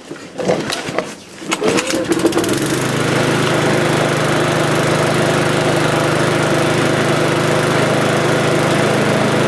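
Mountfield SP470 lawnmower's petrol engine starting from cold after sitting unused for a long time: a few clacks, then it catches about two and a half seconds in and settles into a steady run.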